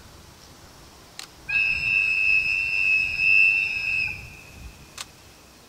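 Train whistle: one long, steady, high blast lasting about two and a half seconds from the approaching locomotive, with a faint low rumble under it. A short sharp click comes just before the blast and another a second after it.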